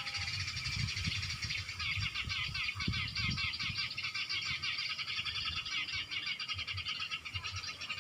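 Dense, rapid chattering of Eurasian tree sparrows, a lure-call recording played to draw small birds to lime sticks, over a low rumbling.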